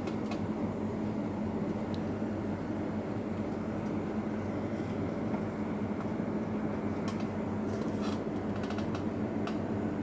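Steady low mechanical hum, like a motor or fan running, with a few faint short clicks in the second half.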